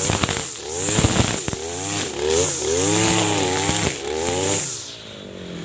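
Backpack brush cutter's small engine revving up and down repeatedly as its spinning nylon trimmer line cuts into grass and brush, with a high whirring and sharp clicks of the line striking stems. About five seconds in it drops back to a steady idle.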